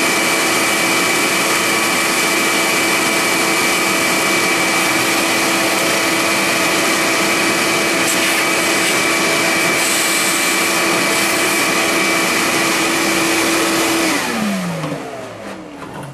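Shop vacuum running with a steady whine, its nozzle held at the cutter of a CNC-converted mini milling machine to suck away chips. About 14 seconds in it is switched off and the motor winds down, its pitch falling.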